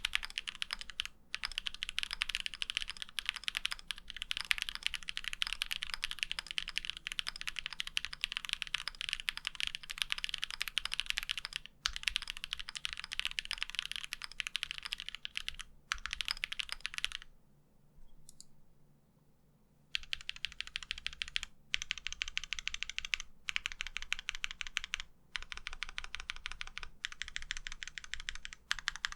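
Typing on a mechanical keyboard fitted with GMK doubleshot ABS Cherry-profile keycaps: dense runs of rapid keystroke clacks, broken by short pauses and by one gap of about two and a half seconds a little past halfway.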